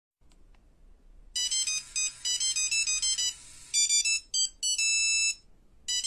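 An electronic phone ringtone playing a bright, high melody of quick stepped notes. It starts about a second in, pauses briefly near the end, then starts over.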